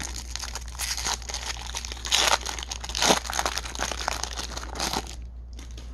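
Shiny wrapper of a 1994 Fleer Sunoco baseball card pack crinkling as it is torn open by hand, with louder rips about two and three seconds in; it stops about five seconds in.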